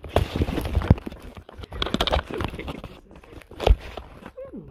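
Crinkling, rustling handling noise right at the camera's microphone, in loud irregular bursts with sharp crackles.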